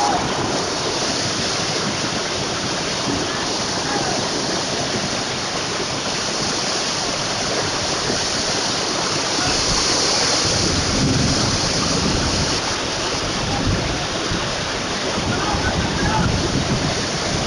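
Muddy floodwater from heavy rain rushing fast down a street, a steady torrent surging against a parked car.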